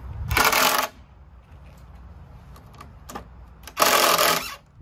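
DeWalt 20V MAX cordless impact driver driving a screw through a wooden framing stud into a post, in two short bursts about three seconds apart.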